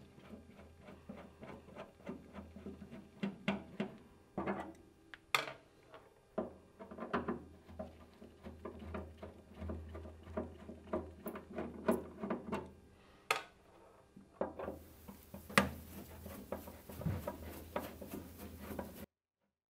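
Screwdriver backing screws out of nuts welded behind a steel car-body firewall: irregular small metallic clicks and scrapes over a steady low hum. The sound cuts off just before the end.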